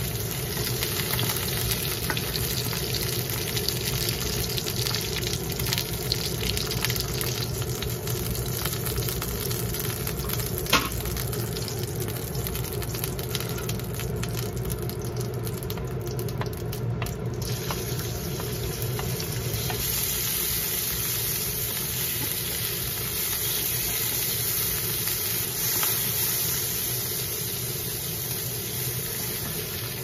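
Shrimp and then sliced pork sizzling in oil in a wok, stirred with chopsticks and a spatula that tick and scrape against the pan, with one sharp clack about eleven seconds in. The sizzle changes near the middle as the pork goes in.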